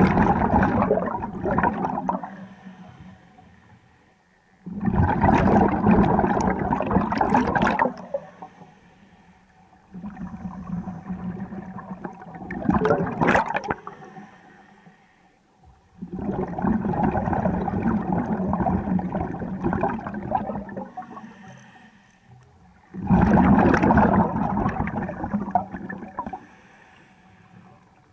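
Scuba diver breathing through a regulator underwater, heard as long bursts of exhaled bubbles gurgling out every few seconds, with quieter breathing between. The last burst is cut off near the end.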